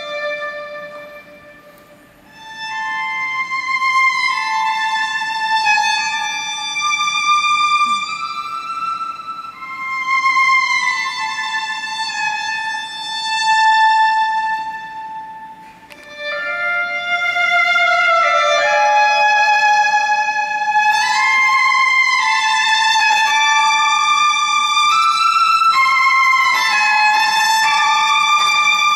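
Solo violin bowed with no accompaniment: a slow melodic line of held notes that swell and fade, going quiet about two seconds in and again just past halfway, then louder, busier playing through the second half.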